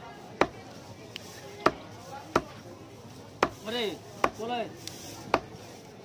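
A knife chopping through a barracuda fillet into a wooden log chopping block, about six sharp knocks at an uneven pace with a few lighter taps between. Partway through come two short vocal sounds whose pitch rises and then falls.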